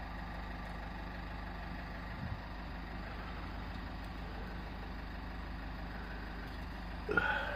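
Nissan Skyline R33 GT-R's RB26DETT twin-turbo straight-six idling steadily, running without any stumble or fault. A brief, sharper sound comes near the end.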